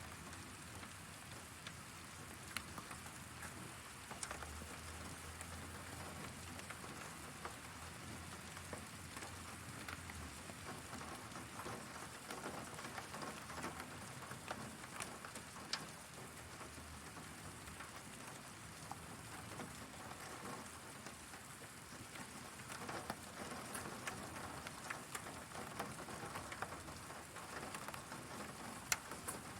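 Heavy rain falling steadily, an even hiss with many scattered sharp taps of drops striking nearby surfaces.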